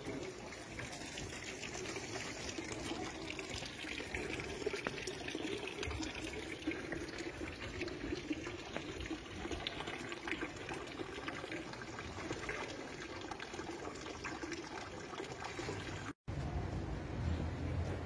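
Water from a public stone fountain's spout splashing steadily into its basin. About 16 s in it cuts off abruptly, and a lower street rumble follows.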